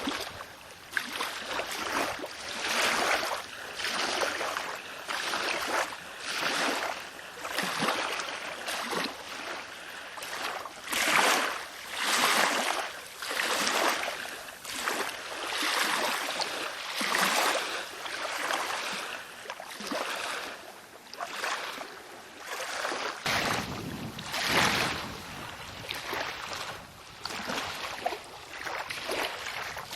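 Water splashing and sloshing around a kayak under way, in uneven swells about once a second.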